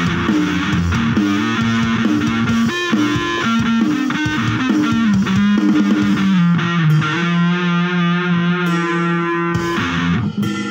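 Electric guitar playing a rock riff of quickly changing picked notes, settling about two thirds of the way in on one low note that is held for a few seconds.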